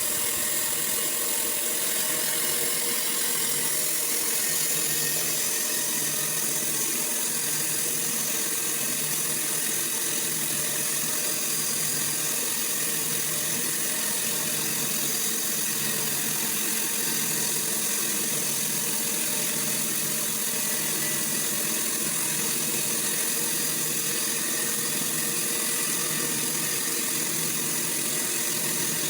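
Sawmill running steadily, a constant high, hissing machine noise with no breaks or changes.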